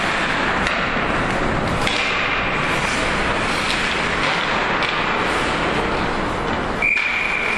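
Steady noise of an ice hockey game in play in a rink. Near the end a referee's whistle sounds one sharp, steady note that carries on past the end, blowing the play dead after the scramble at the net.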